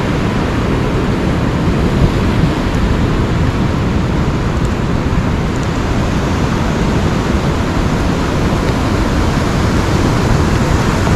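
Steady roar of wind rumbling on the microphone, mixed with surf washing on the beach.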